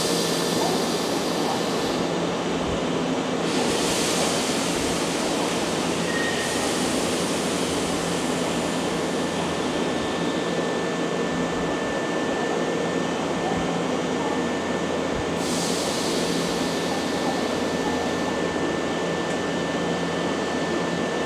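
Nankai 10000 series electric train standing at the platform with its onboard equipment running: a steady hum with a thin high whine. A hiss swells up and fades away three times.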